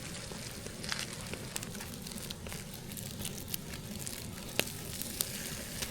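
Eggs frying in butter in a pan over a wood fire: a steady sizzle with scattered sharp crackles and pops.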